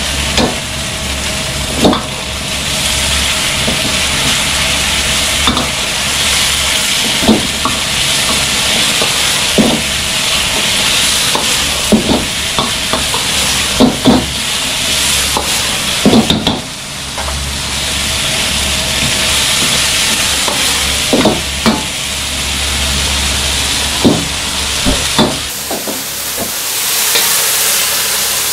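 Crab and egg sizzling in a carbon-steel wok over a wok burner, with the metal ladle knocking against the wok every second or two as it stirs. The burner's low steady rumble drops away near the end as the wok comes off the flame, leaving the sizzle.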